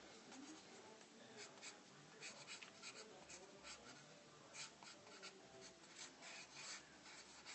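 Pencil scratching on sketchbook paper in many short, irregular strokes, faint.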